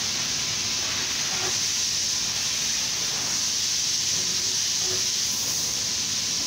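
Steady, even high-pitched hiss of workshop background noise, with no sign of the balancer spinning.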